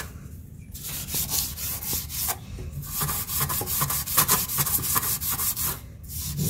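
A cloth rubbed rapidly back and forth over a chrome tap spout, scrubbing off hard-water scale stains. The strokes start about a second in, pause briefly midway, and stop near the end.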